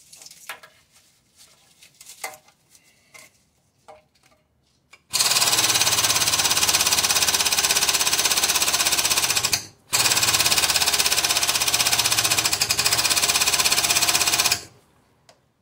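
An impact wrench hammering on a bolt in two long runs of about five seconds each, with a brief pause between, after some light clicks and knocks of tools being handled.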